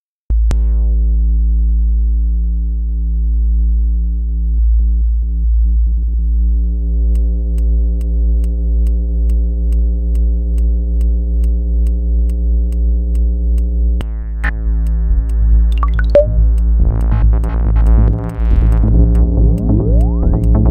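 Synthesized stereo waveform that draws the pictures on an oscilloscope in X/Y mode, heard as electronic music: a loud steady buzz of stacked tones over a deep hum starts abruptly just after the start. Faint regular ticks join from about seven seconds in, and from about fourteen seconds it turns busier, with sweeping pitches.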